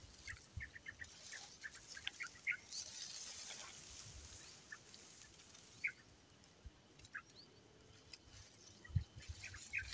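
A small bird chirping in short, high calls, scattered and repeated. There is a rustle of grass being pushed aside around three seconds in, and a dull thump near the end.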